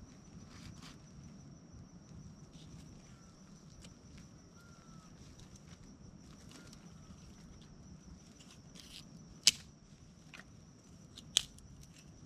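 Camping gear being handled by hand: soft rustles and light knocks, with two sharp clicks about two seconds apart near the end, the loudest sounds. A steady high-pitched insect drone runs underneath.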